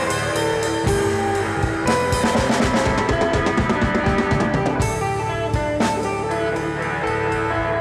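Background rock music with drums and a steady beat.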